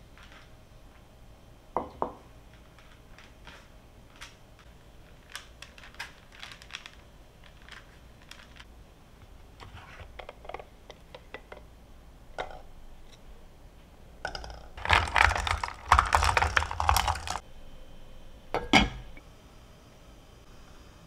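Scattered light clicks and knocks of kitchen items being handled, with a sharper knock about two seconds in and a longer burst of louder clattering and rustling about fifteen seconds in.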